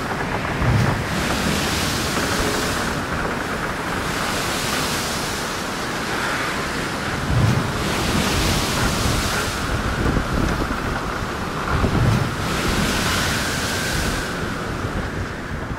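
Gale-force wind and breaking sea on a sailing yacht at speed: a constant rush of wind and water, with the hiss of the bow wave and spray surging four times, a few seconds apart, and heavy wind buffeting on the microphone that gives low thuds.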